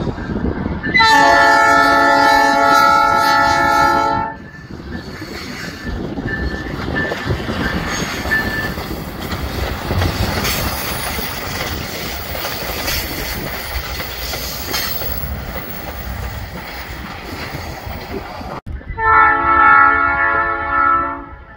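Budd RDC rail diesel car sounding its horn in one long blast of about three seconds, then rolling past close by with the clatter of its wheels over the rail joints. Near the end, a second horn blast of about two seconds.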